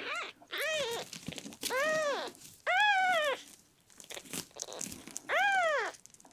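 A red tabby-and-white kitten about a week and a half old mewing four times. Each mew is short and high, rising then falling in pitch. There is a gap of about two seconds before the last one.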